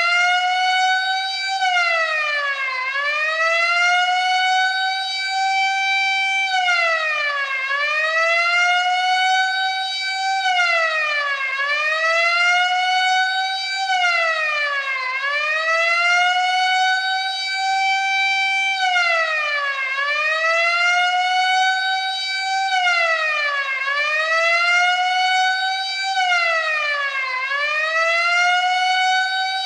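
Prison alarm siren wailing, its pitch rising and falling in a slow repeating cycle about every four seconds.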